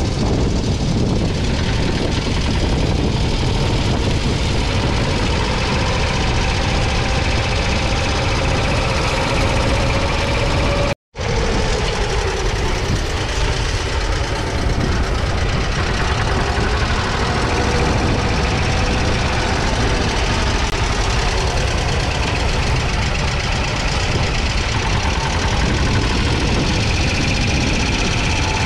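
1942 British Anzani Iron Horse walking tractor's 600 cc single-cylinder petrol engine running steadily while pulling a plough through the soil. The sound breaks off for an instant about eleven seconds in.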